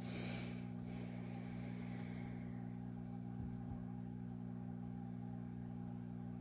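A steady low hum, made of several even tones, with a brief hiss right at the start.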